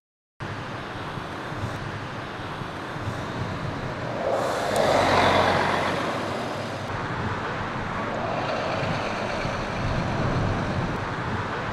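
Mercedes-Benz Citaro city bus driving past at speed: a broad rush of engine and tyre noise that starts abruptly, swells to its loudest about five seconds in and fades, then swells a second, milder time near the end.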